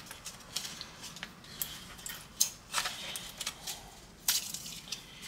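Light clicks and taps from airsoft pistol parts being handled, about eight at irregular intervals.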